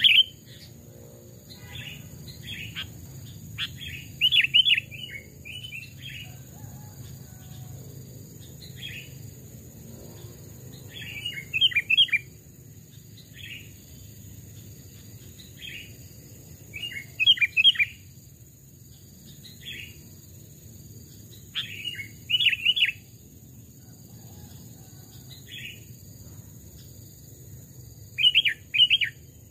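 Sooty-headed bulbul (kutilang) singing: short, bubbly phrases of several quick notes, loud bursts about every five to six seconds, with softer calls in between. A steady high whine runs beneath the song.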